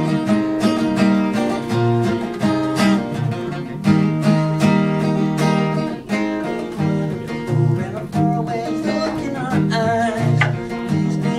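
Acoustic guitar played live, strummed and picked in a steady rhythm of chords.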